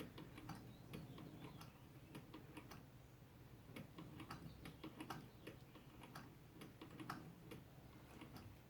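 Hand-cranked 1914 model 128 sewing machine, freshly oiled, stitching: a quiet, uneven run of light mechanical ticks and clicks from the needle and crank mechanism.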